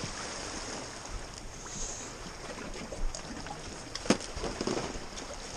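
Sea washing over the rocks with wind, a steady hiss, and a sharp click about four seconds in.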